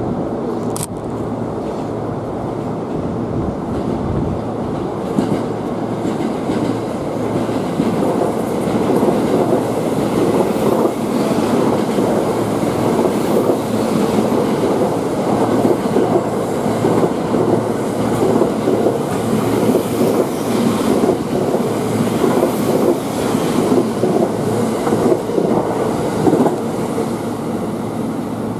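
A 285 series Sunrise Express sleeper train passing at speed. It grows louder over the first several seconds as it approaches, then the wheels clatter over rail joints and points in a long run of clacks while the carriages go by.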